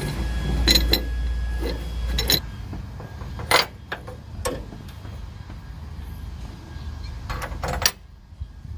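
Metal tool clinks: a socket and ratchet tapping and seating on the nut atop a car's engine mount, a few sharp separate clinks spread over several seconds. A low steady hum underneath stops near the end.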